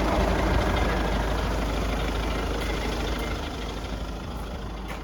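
Volkswagen Tiguan's 2.0 TDI four-cylinder diesel engine idling with a steady low rumble, growing a little quieter toward the end.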